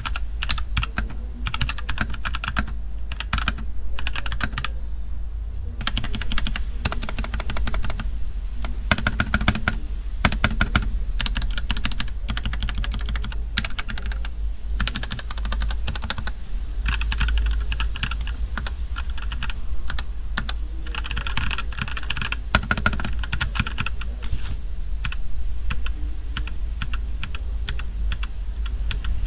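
Typing on a MageGee MK-Mini 60% mechanical keyboard with clicky blue switches: a fast, irregular clatter of keystrokes in uneven runs. A steady low hum runs underneath.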